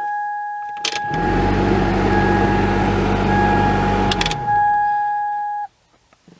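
1999 Toyota Sienna heater/AC blower fan switched on with a click about a second in. It runs with a rushing, low humming noise, then is switched off with a click just after four seconds. A steady high-pitched whine sounds throughout and stops about a second before the end. The blower motor is not working properly.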